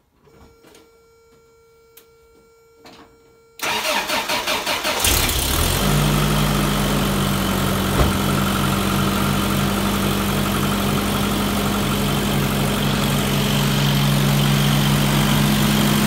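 A 1990 Toyota pickup's engine is cranked by the starter: a few seconds of quiet clicks, then a rapid rhythmic cranking for about a second and a half before it catches and settles into a steady idle. It starts and idles smoothly without backfiring, now that the clogged idle air control valve has been replaced.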